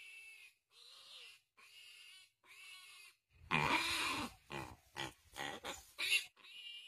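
A piglet squealing in distress while held in a Komodo dragon's jaws: a regular series of high cries, each under a second long. About three and a half seconds in, the squeals turn louder and harsher, then break into several short, loud shrieks.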